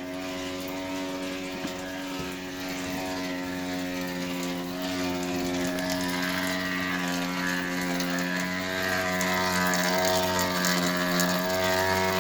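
Electrolux washing machine running with a steady motor hum and whine, slowly growing louder. The owner says it keeps running even with the power to the whole house shut off.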